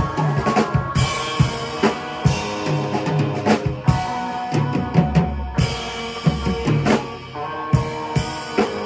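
Electric guitar playing a rock riff over a drum kit beat, with frequent kick and snare hits under held, ringing chords.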